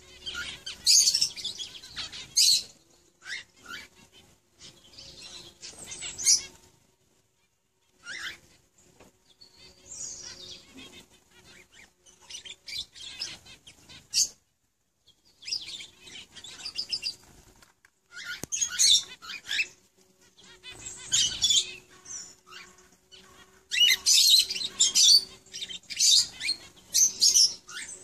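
Lovebird chattering in bursts of high, rapid, squeaky chirps, broken by short pauses.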